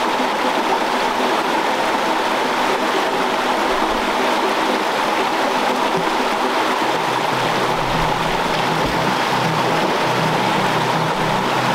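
Fast-flowing creek water rushing steadily, with background music playing over it; low music notes come in about seven seconds in.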